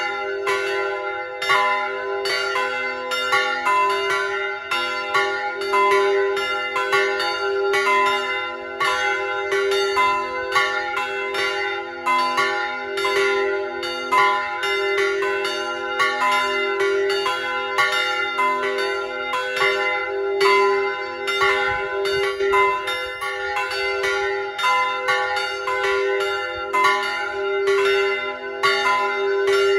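Three church bells swung together in full peal: a 290 kg bell in c'' and a 130 kg bell in f'', both from the Felczyński foundry, with a 200 kg cast-steel bell in f-sharp''. Their clapper strikes fall in an uneven stream of several strokes a second, the notes ringing into one another.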